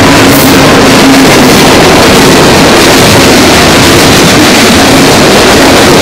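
A CSX freight train's cars rolling past at close range, a loud, steady rumble and rush of wheels on rail.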